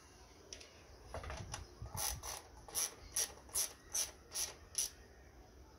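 Ratchet wrench on a long socket extension clicking as it is swung back and forth, winding in a bolt on a car engine's top end. A few soft ticks give way, about two seconds in, to a steady run of sharp clicks, about two or three a second.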